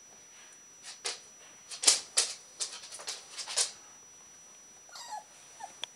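A run of sharp, scratchy clicks for about three seconds, then two short, faint high whimpers from a young Alaskan Malamute puppy near the end.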